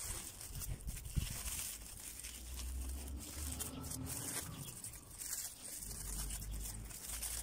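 Aluminium foil crinkling and tearing as a foil parcel is pulled open by hand and with a fork, in irregular crackles, with a low rumble underneath.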